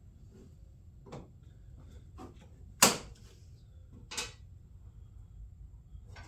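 Handling clatter as a plastic fender shroud and its bolts and clips are fitted: four sharp clicks and knocks, the loudest about three seconds in.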